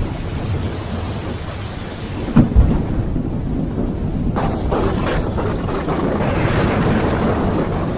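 Thunderstorm with rain: a continuous low rumble of thunder, broken by a sharp double crack of a close thunderclap about two and a half seconds in, followed by crackling and a rolling rumble.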